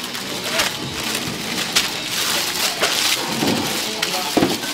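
Thin plastic bag crinkling and rustling with many small crackles as a hand presses and smooths a bag of raw meat flat.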